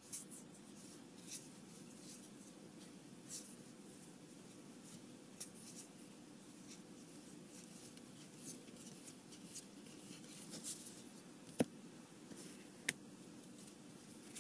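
Trading cards being sorted by hand, slid and flicked off one stack onto another: faint paper rustling with many small clicks, and two sharper clicks a little over a second apart late on.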